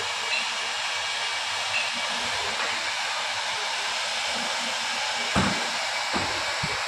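Hot-air plastic welding gun blowing a steady hiss, with a few short knocks near the end.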